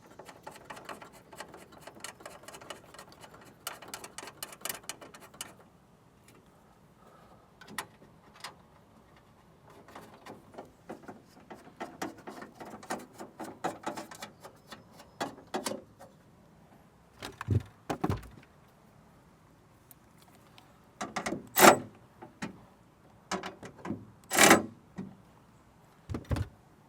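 Hands working with small metal car parts and tools: scattered clicks and rattles, with a few louder knocks later on, as a mounting plate is refitted with two bolts.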